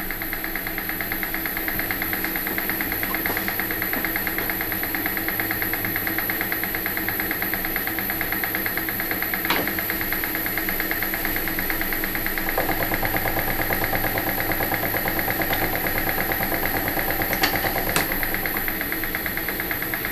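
A metalworking machine tool running steadily while cutting metal, with a fast, even chatter and a few sharp clicks about halfway through and near the end.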